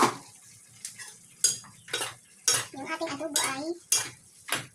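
A spoon stirring chopped meat in a metal cooking pot, clanking and scraping against the pot's side in a string of separate sharp strokes, one or two a second.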